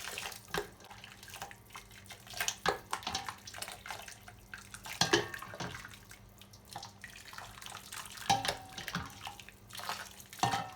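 Hot maltose-and-vinegar glaze being poured over a whole duck, splashing and dripping back into the pot in irregular bursts.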